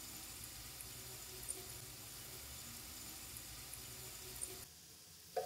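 Faint, steady sizzle of ring samosas deep-frying in moderately hot oil, with small bubbles ticking; it cuts off suddenly near the end.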